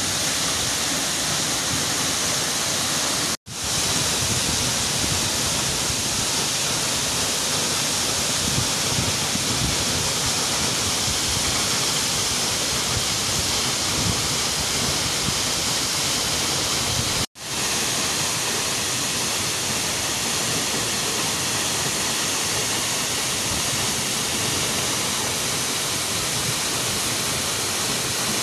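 Steady rush of water from a rocky forest stream and a tall waterfall falling into a pool. It cuts out to silence for an instant twice, about three seconds in and a little past halfway.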